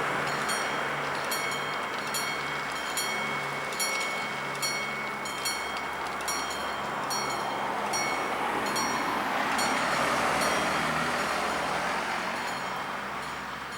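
An Italian level-crossing bell rings, about two strokes a second, while an electric commuter train runs over the crossing. The rush of the train eases and then swells again near the end.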